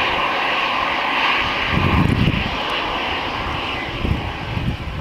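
Airbus A320 jet engines running as the airliner taxis past at close range: a steady rushing whine, with low rumbles that come and go.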